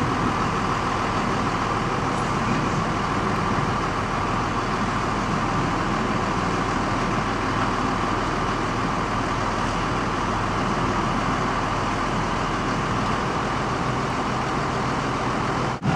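Aerial ladder truck's engine running steadily while the boom raises the work platform: an even mechanical hum with a steady mid-pitched whine over it.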